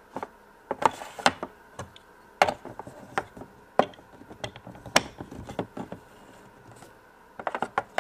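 Hard plastic Mega Bloks toy blocks clicking and knocking as they are handled and pressed together, in irregular sharp taps with short pauses between them.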